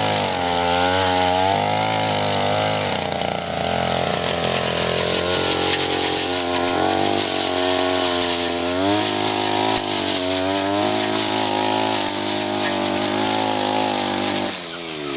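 Tabata backpack brush cutter engine running hard as its spinning head is pressed to the ground and swept through short grass, the engine pitch rising and falling with throttle and load. Near the end the throttle is released and the engine winds down.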